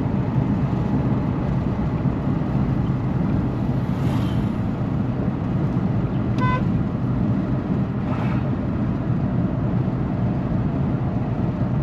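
Steady engine hum and road rumble of a moving vehicle, with a short high beep about six and a half seconds in.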